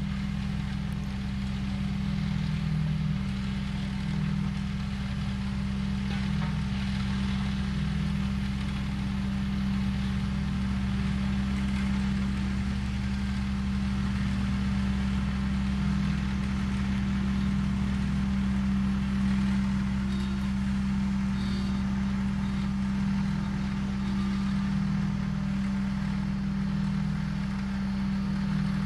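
Heavy diesel engine of a road-construction machine running steadily at an even pitch.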